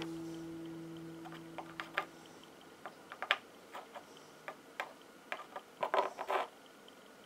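Faint, scattered clicks and taps of small pyrite nuggets being picked up, nudged and set back down on a hard surface, with a quick cluster of taps about six seconds in.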